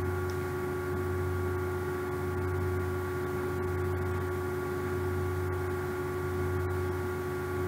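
Steady electrical hum with several steady overlapping tones, low and unchanging.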